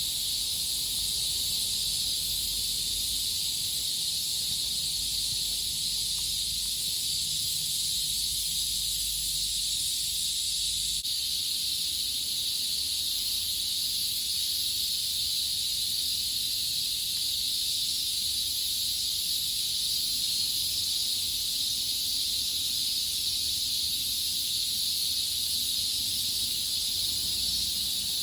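Chorus of cicadas, most likely large brown cicadas (Graptopsaltria nigrofuscata), keeping up a steady, unbroken high sizzling hiss with no pulsing.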